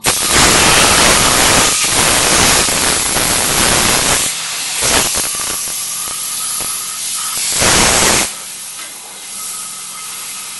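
Compressed-air siphon-cup cleaning gun spraying, a loud hiss that starts abruptly and holds for about four seconds, then comes in shorter surges with another strong blast about eight seconds in, and after that drops to a quieter steady hiss.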